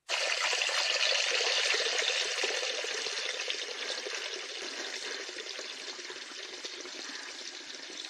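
Bathroom sink tap running, water gushing into the basin. It starts suddenly and gets gradually quieter.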